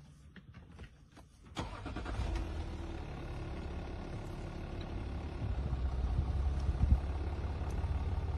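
Car engine starting about a second and a half in, then running steadily at low revs as the vehicle creeps forward. A few faint clicks come before it, and there is one brief knock near the end.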